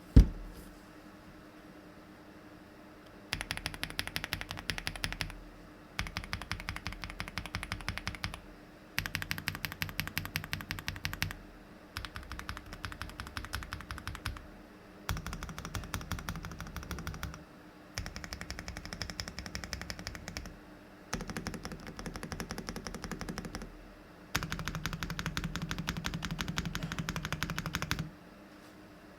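A sharp knock at the very start, then fast typing on a Meletrix Zoom75 custom mechanical keyboard. The typing comes in about eight runs of rapid keystrokes, each a few seconds long, with short pauses between.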